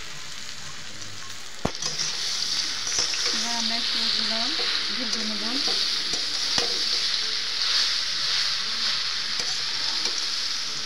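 Jujube (boroi) pieces frying in hot oil in a metal kadai, sizzling steadily as a metal spatula stirs them, with a few sharp knocks of the spatula against the pan. The sizzling gets louder just under two seconds in, after the first knock.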